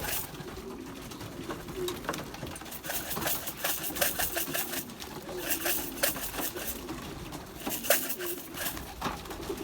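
Young racing pigeons cooing, low rolling coos repeating over and over, with several short bursts of scratchy rustling and clicks, the sharpest about four and eight seconds in.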